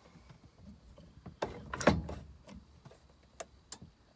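A few scattered mechanical clicks and knocks in the cab of a Case TR320 compact track loader, the loudest about two seconds in; no cranking or engine running is heard, as the machine fails to start.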